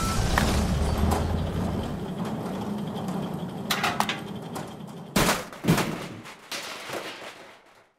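Film soundtrack: violin music ends and dies away, followed by a few sharp knocks, the loudest two about five and six seconds in, as the sound fades out.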